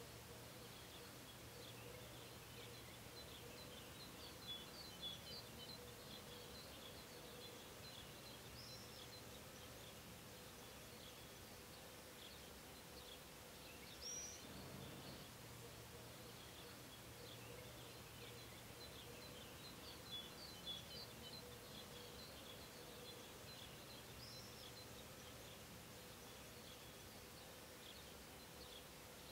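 Faint outdoor ambience: small birds chirping in scattered bursts in the background, with a few short rising whistles, over a faint steady hum.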